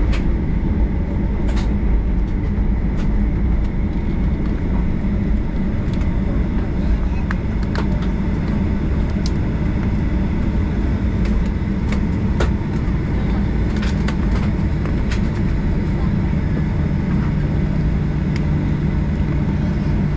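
Cabin noise of a Boeing 737-800 taxiing, its CFM56-7B engines running at low power: a steady low rumble with a faint high whine. Scattered small clicks and rattles sound over it, and a low hum joins in about three-quarters of the way through.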